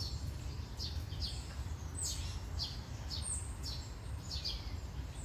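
Birds chirping: short, high chirps that sweep downward, repeated several times a second, over a steady low rumble.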